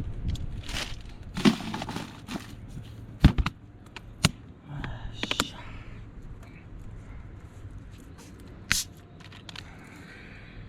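Ice cubes in a cup clinking and knocking, with a short fizzing hiss about five seconds in as cola goes over the ice, and a few sharp clicks.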